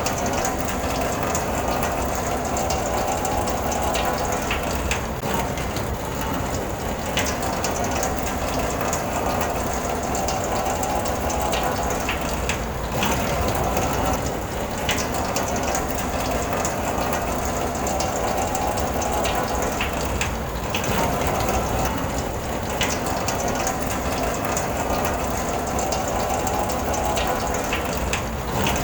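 Rain falling on a car, heard from inside the cabin: a steady dense patter with scattered sharper ticks of individual drops.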